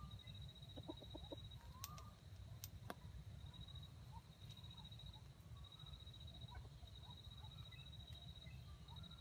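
Very faint junglefowl clucks and a couple of short rising calls over a steady, high, pulsing trill.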